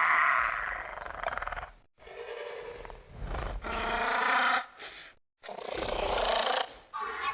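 Velociraptor dinosaur sound effect: a run of rasping calls and growls, one trailing off about two seconds in, then three or four more of one to two seconds each, separated by brief silences.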